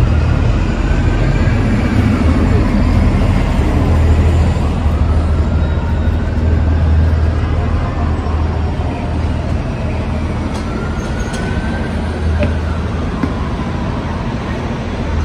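City street traffic noise: a steady low drone of passing and idling vehicles, with faint rising and falling whines over it.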